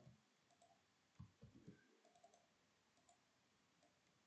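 Near silence with a few faint clicks of a computer mouse and keyboard, clustered between about one and two and a half seconds in.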